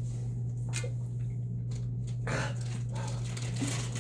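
A man panting and breathing hard in short, breathy gasps, his mouth and throat burning from Carolina Reaper pepper heat, over a steady low hum.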